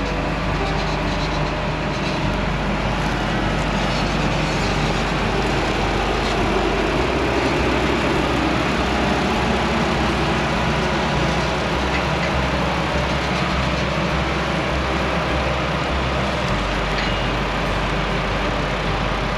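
Heavy harvest machinery running: a steady, loud engine drone under dense mechanical noise. The low engine note changes about seven seconds in and again about sixteen seconds in.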